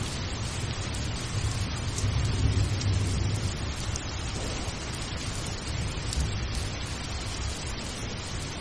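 Steady rain hiss with a low rumble underneath that swells briefly about two seconds in.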